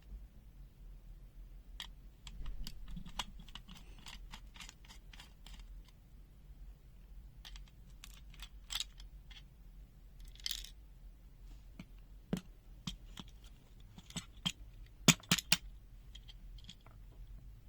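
Small plastic clicks and scrapes from a handheld digital multimeter's case being handled and taken apart. A few sharper, louder clicks come in quick succession near the end.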